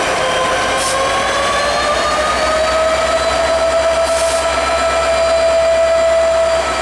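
EMD diesel locomotive rolling slowly past under power, its engine running with a steady whine that rises slightly in pitch a couple of seconds in. Two brief hisses break through, about one and four seconds in.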